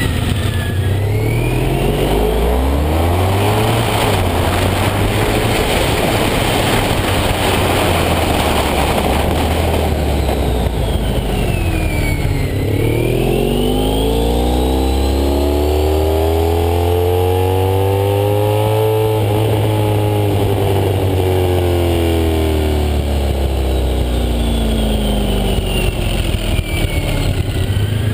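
Honda ST1300's 1261 cc V4 through Staintune aftermarket mufflers under way. The revs climb in steps in the first few seconds, then there is mostly wind rush while cruising. About halfway through comes one long pull up through the revs that eases off slowly, with a faint high whine rising and falling along with it.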